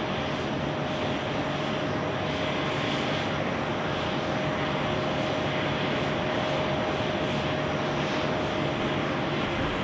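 Boeing 737-800's CFM56-7B jet engines running during the landing rollout: a steady rushing noise with a steady whine on top.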